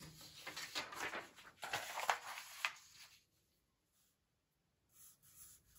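A sheet of paper rustling and being handled as it is laid flat against a drawing pad, in a run of short scratchy sounds for about three seconds. Then quiet, with faint pencil strokes on paper near the end.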